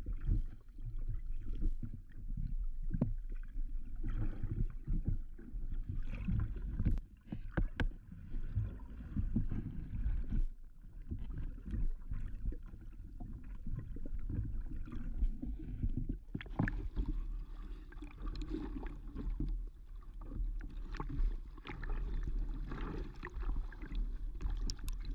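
Water sloshing and gurgling against a windsurf foil board, heard through a camera at and below the waterline, with a steady low rumble and scattered sharp knocks.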